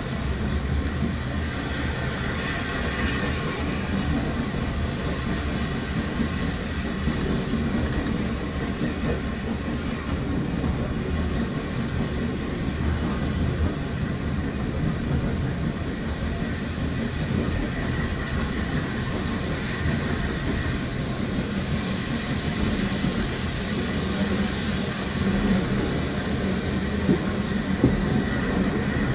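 Railway carriage running along the track, heard from inside the coach: a steady rumble of the wheels on the rails, with a couple of sharp knocks near the end.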